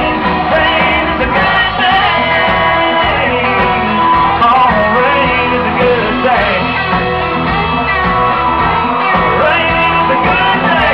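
Country band playing live at full volume: a male lead singer over electric guitars and drums, amplified through a PA.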